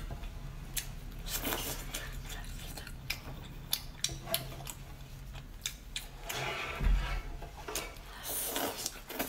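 Close-miked eating sounds: wet chewing and lip smacking on spicy seafood, with scattered sharp clicks of a utensil and a low thump about seven seconds in.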